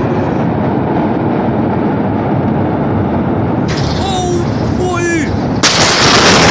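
A steady loud rumble with a person crying out about four seconds in, then the blast wave of a huge port explosion reaches the phone: a sudden, very loud wall of noise near the end as the phone is knocked about.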